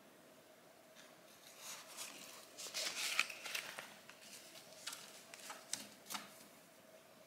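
Thin embossed paper sheet rustling and crinkling as it is lifted off a tray of food, a run of crisp crackles heaviest about three seconds in and dying away after about six seconds.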